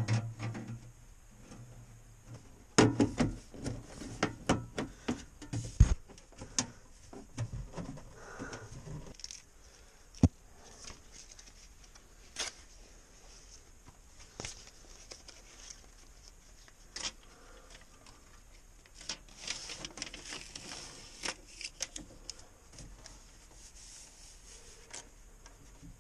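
Close hand work with tin snips and building materials: a run of sharp clicks and knocks, with one hard click shortly after, then scattered taps and a stretch of rustling and rubbing.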